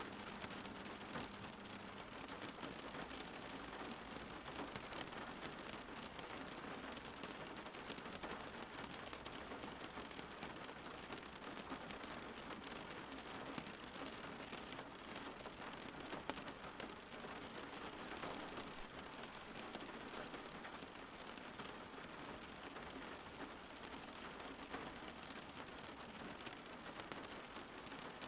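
Steady rain falling, an even patter of drops on surfaces.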